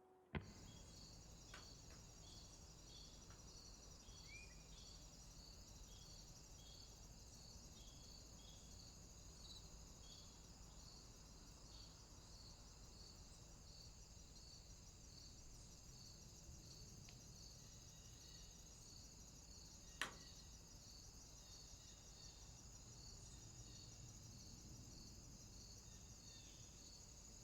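Faint insect chirping, evenly repeated about one and a half times a second over a steady high hiss, with a sharp click right at the start and another about 20 seconds in.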